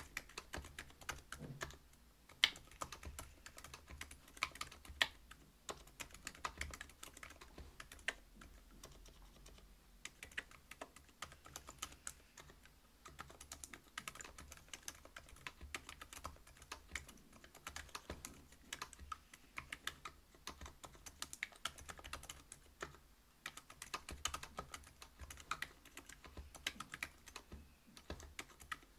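Typing on a Whale 75 mechanical keyboard fitted with stock Silent Alpaca silent linear switches (62 g), a brass plate and PBT keycaps: a steady, quiet stream of damped keystrokes with a few louder strikes.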